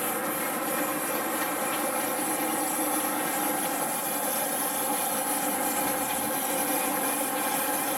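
Steady drone of the sportfishing boat's engines and machinery, an even hum made of several held tones over a hiss, unchanging throughout.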